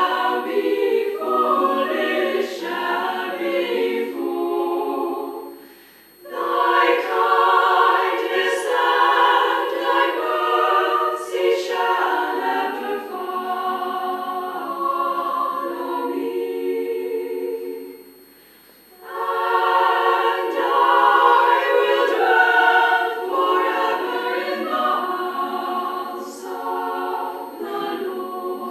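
Women's choir singing unaccompanied, with short breaks between phrases about six seconds in and again about eighteen seconds in.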